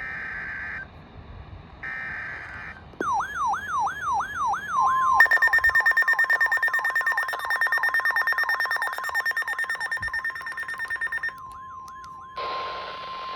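Emergency Alert System tones on NOAA Weather Radio: two short bursts of screeching SAME data tones, then a siren-like tone sweeping rapidly up and down, and the steady 1050 Hz weather alarm tone. The alarm tone is joined by fast pulsing beeps for several seconds and runs on until a hiss of broadcast audio starts near the end.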